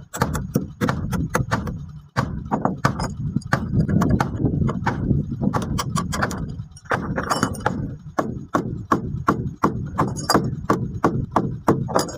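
Hammer striking a chisel into a wooden boat timber: a quick, steady run of sharp blows, about three to four a second, broken by two short pauses.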